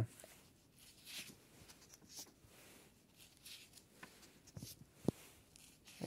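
Pages of a thin paper workbook being turned and handled: faint, scattered paper rustles, with one short sharp click about five seconds in.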